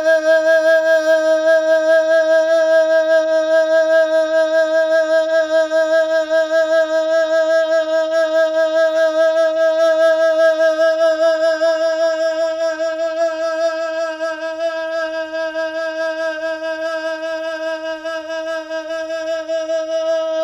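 A singer holding one long note with a wavering vibrato for about twenty seconds. The note weakens and turns uneven in its second half, then cuts off suddenly near the end.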